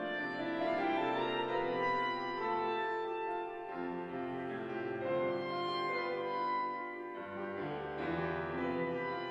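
Clarinet and piano playing contemporary classical chamber music: the clarinet holds long, sustained notes over piano accompaniment, the notes changing every few seconds.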